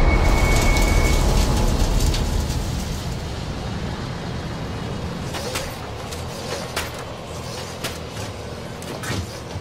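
Film sound design: a deep rumbling drone that dies away over the first few seconds into a quieter, hissing ambience, with a few scattered sharp clicks in the second half.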